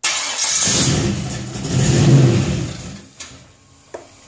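GM LQ4 6.0-litre V8 starting cold and revved with a blip of the throttle, rising to a peak about two seconds in, then dying away a second later. A couple of light clicks follow.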